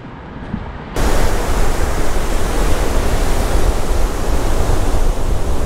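Loud, steady rushing noise of wind and surf on a beach, cutting in suddenly about a second in, with a strong low rumble of wind on the microphone.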